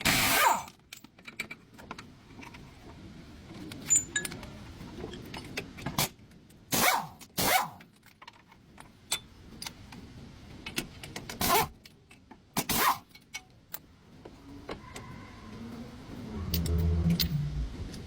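Scattered metallic clinks and knocks, several of them sharp and loud, with a short low hum about three-quarters of the way through.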